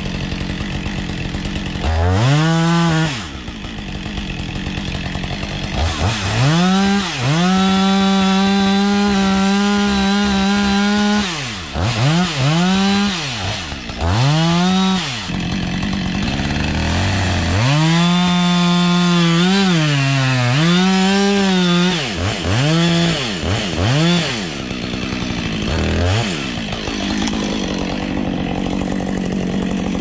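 Husqvarna two-stroke chainsaw idling, revved in quick blips and held at full throttle for several seconds at a time while cutting into the base of a red pine. The pitch dips briefly during the second long cut.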